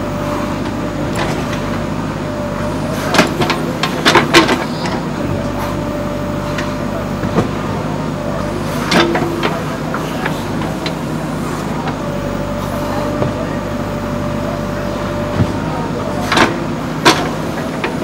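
JCB 3DX backhoe loader's diesel engine running steadily under working load, with sharp clanks and knocks from the bucket and arm as it digs and scrapes earth, several of them close together a few seconds in and two more near the end.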